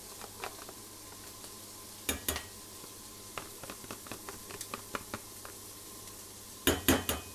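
Vegetables and bacon frying in a pan with a steady sizzle. Over it, a utensil scrapes and taps against the sauce tub as the sauce is scraped out, with a few sharp clicks about two seconds in and a quick cluster of louder clicks near the end.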